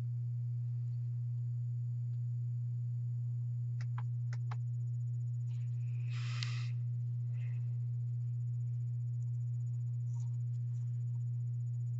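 A steady low hum throughout, with a few faint clicks about four seconds in and a brief rustle about six seconds in as hands press a twine strand onto a paper ornament.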